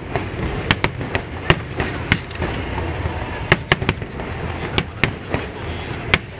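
Aerial firework shells bursting: a dozen or so sharp bangs at irregular intervals, some in quick pairs, over a steady background of noise.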